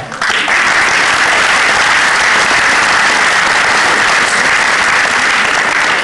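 Audience applauding, a dense steady clapping that starts just after the beginning and holds an even level throughout.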